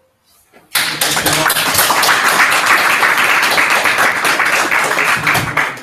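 Small audience applauding: many hands clapping, starting about a second in and tailing off near the end.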